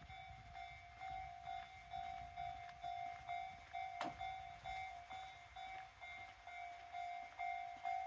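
Faint electronic railway level-crossing warning bell ringing steadily, about two dings a second, with a single sharp click about four seconds in.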